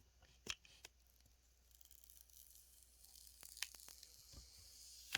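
Protective wrap being peeled slowly off a new iPhone 12 Pro Max's screen: a faint, high peeling hiss that builds over the last three seconds, with a few small clicks.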